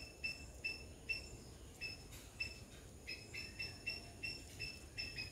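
Short high chirps repeated about twice a second, each a clipped two-toned note, over a faint steady high-pitched shrill of insects.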